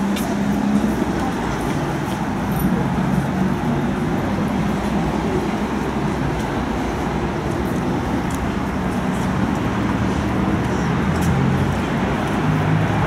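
Busy city street ambience: steady traffic noise from road vehicles with a low, even hum.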